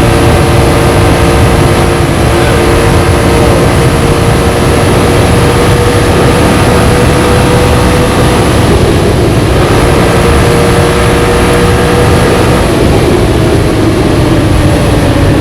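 Can-Am Outlander ATV engine running hard at a steady high speed under way, over a heavy low rumble. It eases briefly about halfway through and its pitch sinks slightly near the end.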